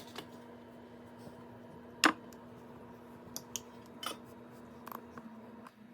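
A handful of separate sharp clicks and knocks from kitchen utensils and baking gear being handled, the loudest about two seconds in, over a faint steady hum.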